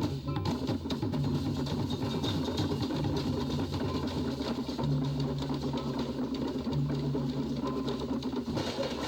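Machinery running steadily: a dense mechanical rattle over a low hum that comes and goes in stretches of about a second.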